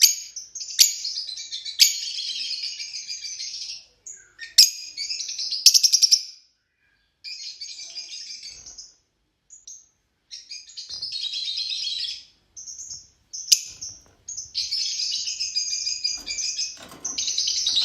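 Fischer's lovebirds chattering: high-pitched bursts of chatter a second or two long, separated by short pauses and punctuated by sharp single chips, becoming nearly continuous over the last few seconds.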